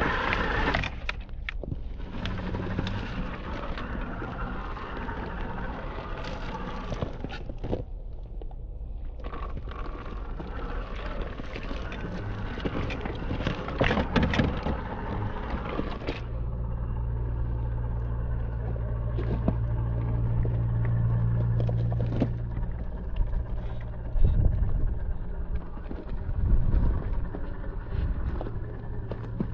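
Traxxas TRX-4 radio-controlled crawler working slowly over rough ground: crackling and clicking from tyres and drivetrain on dirt and stones, then a steady low motor hum from about halfway, with a few bumps near the end.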